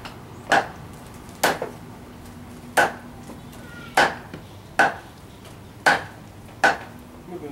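Cleaver chopping raw meat on a wooden chopping block: seven sharp separate chops, roughly one a second at an uneven pace.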